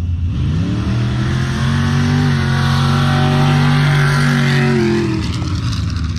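A pickup truck's engine at full throttle on a mud drag run: the pitch climbs quickly as it accelerates, holds high, then drops about five seconds in.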